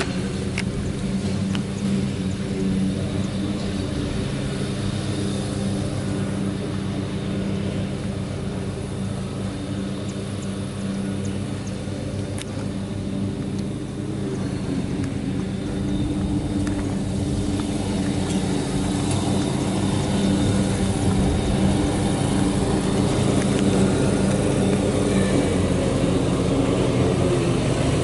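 Ford F-550 Super Duty truck's engine idling steadily, growing somewhat louder over the last ten seconds.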